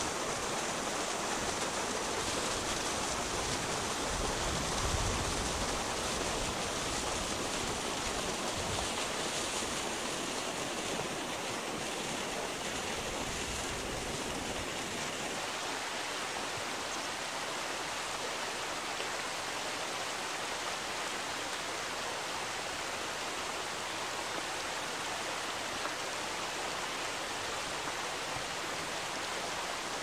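Steady rushing of flowing river water, with a deep rumble underneath that drops away about halfway through.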